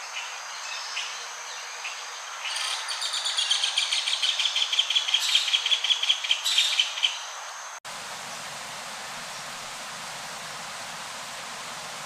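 Green kingfisher calling: a rapid series of dry ticking notes, about seven a second, for around five seconds. Then a sudden cut to a steady rushing hiss.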